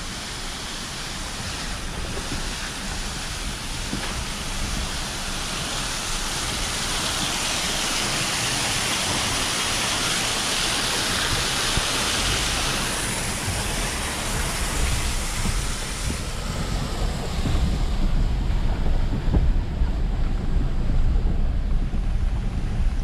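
Waterfall rushing beside the track, swelling to its loudest about halfway through and fading as the vehicle moves past. Near the end, low rumble and wind buffeting on the microphone take over as the truck drives on.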